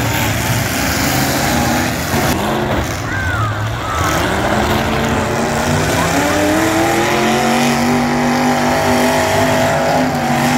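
Demolition derby car engines running hard under load in the pile-up. About four seconds in, one engine revs up, climbing in pitch and then holding high.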